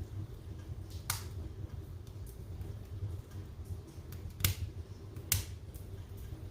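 Wood fire in a fireplace crackling, with scattered sharp pops (the loudest about a second in and twice more between four and a half and five and a half seconds in) over a low steady rumble.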